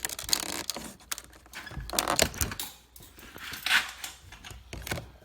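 Light plastic clicks and scrapes of a thin pry tool working at the plastic trim of a car door panel, with a couple of longer scrapes about two and four seconds in.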